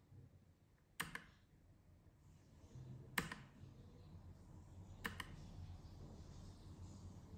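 Single key presses on a low-profile mechanical keyboard, three of them about two seconds apart, each a quick pair of clicks as the key goes down and comes back up.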